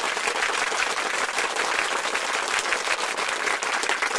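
Crowd applause: many hands clapping steadily.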